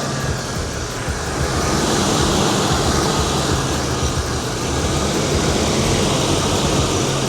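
A 1991 Chevrolet Caprice engine running steadily just after a water pump, thermostat and temperature sensor replacement, with a loud dense rush of engine and fan noise over a low hum.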